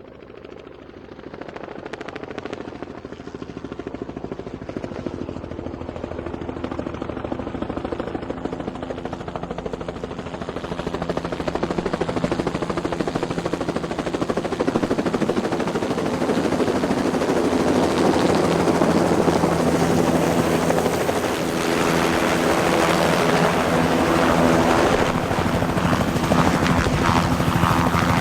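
Ambulance helicopter's rotor and turbine running with a fast, even blade pulse, growing steadily louder over the first half, then holding steady and loud.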